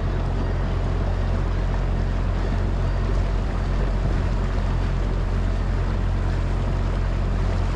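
Boat motor running steadily at a constant pitch, with wind and water noise over it.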